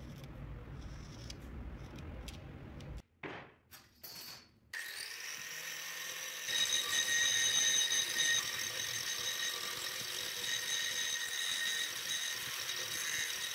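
Electric angle grinder comes up to speed about five seconds in and runs with a steady high whine, getting louder about a second later as its abrasive disc grinds a curved notch into a steel bar held in a vise; the sound cuts off sharply at the end.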